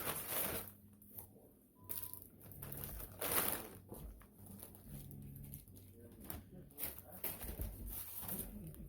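Plastic packaging rustling and crinkling in bursts as small purchased items are handled and unwrapped, the loudest rustle about three seconds in, with a few light clicks and knocks.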